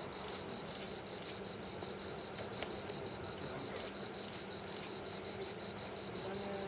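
Insects chirping at night in a steady pulsed rhythm, about five pulses a second, with one higher chirp about three seconds in, over a faint low steady hum.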